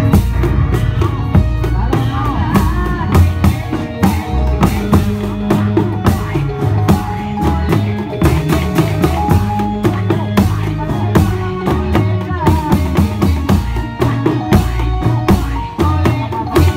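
Reog Indramayu music: drums keep a busy beat over a bass line, while a melody instrument plays held notes and some that slide.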